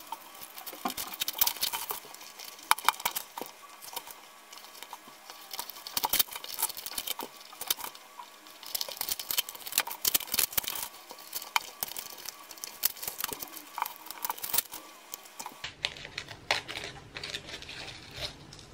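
Masking tape being peeled off a climbing shoe and handled: irregular crackling, rasping tears and crinkling, with sharp clicks here and there.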